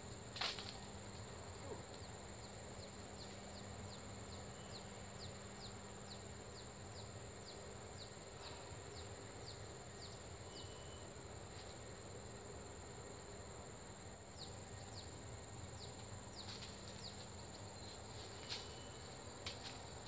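Faint outdoor ambience: a steady high-pitched insect drone, with a run of short chirps repeating about twice a second for several seconds. There is a single sharp click about half a second in.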